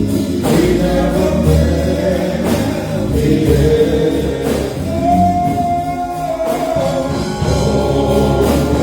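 Gospel song: voices singing over instrumental accompaniment, with one note held for about a second and a half past the middle.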